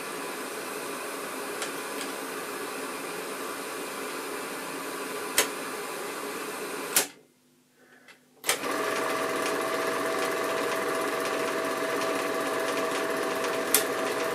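Chinon Sound 8000 Super 8 projector's motor and film mechanism running steadily. It stops with a click about seven seconds in, starts again a second or so later and runs louder with a steady whine. A few sharp clicks stand out.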